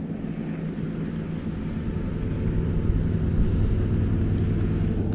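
A low, steady engine drone that grows slowly louder, the sound of a motor running nearby.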